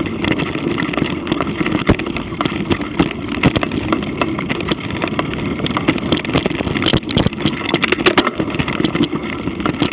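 Mountain bike rolling over a dirt singletrack: steady tyre and wind noise with frequent clicks and knocks as the bike rattles over bumps.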